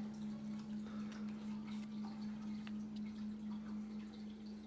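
A steady low hum at one pitch, with faint soft ticks of trading cards being handled.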